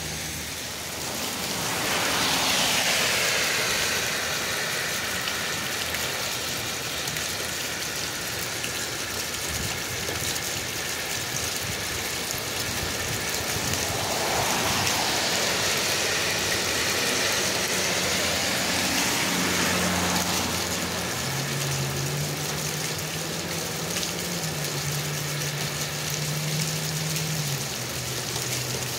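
Steady rain with water gushing from a drain pipe onto the pavement. Tyres hiss past on the wet road twice, about two seconds in and again about halfway through, and a low engine hum sits under the rain in the last third.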